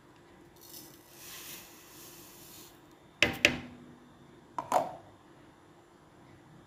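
Granulated sugar poured into a glass mixing bowl with a soft hiss lasting about two seconds, followed by two pairs of sharp clinks on the glass bowl, the first pair leaving a brief ring.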